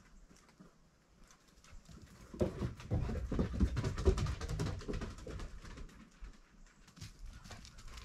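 A dog moving close to the microphone: a quick run of scuffling and tapping sounds starting about two and a half seconds in, loudest around the middle, then easing off to a lighter patter.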